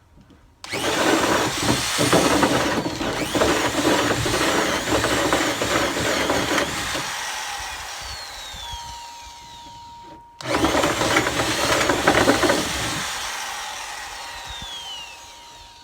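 Drill-driven tenon cutter cutting a tenon on the end of a small log pole. It runs twice: a loud stretch of cutting that fades with a falling whine as the tool winds down, then a second, shorter cut starting about ten seconds in.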